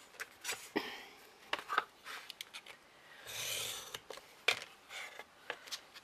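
Snap-off craft knife scoring through grey chipboard along a metal ruler. Short scratchy strokes, with a longer one about halfway through, among scattered clicks and taps from the ruler and board being handled.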